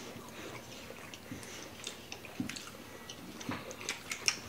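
Close-miked chewing of grilled filet mignon: scattered soft mouth clicks and smacks, a little denser near the end.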